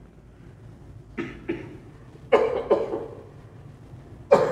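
A man coughing: several short coughs, a fainter pair about a second in, a stronger pair after two seconds, and the loudest cough near the end.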